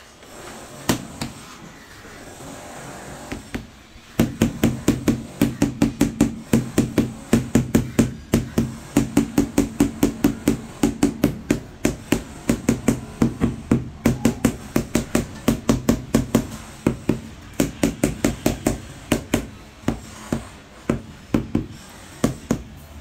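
A rubber mallet tapping a large glazed floor tile down into a wet sand-cement mortar bed to bed and level it: a few scattered knocks, then from about four seconds in a quick, steady run of knocks, about three a second, that goes on until near the end.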